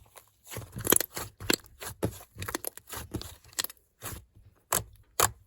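Slime being squished and pressed by hand, giving an irregular run of crunchy, crackling pops, several a second, with the loudest about a second in.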